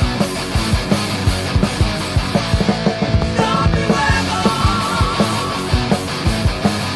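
Loud 1980s heavy metal band recording: distorted electric guitars over a steady, driving drum beat.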